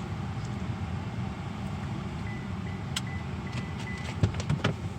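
Steady low rumble inside a parked car, with a faint thin steady tone through the middle and a few sharp clicks and knocks near the end.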